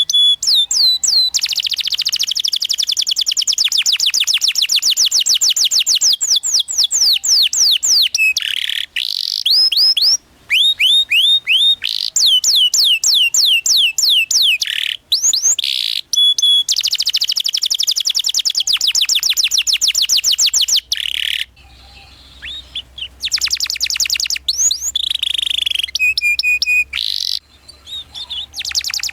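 Domestic canary singing long, fast rolling trills of quickly repeated high sweeping notes, in several phrases broken by short pauses, with a quieter stretch a little past the middle.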